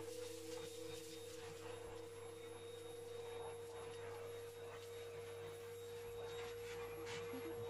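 Vacuum cleaner running steadily through a homemade plastic-pipe cyclone dust separator, its wand sucking up floor dust: a faint even hiss with a steady hum and a steady tone under it.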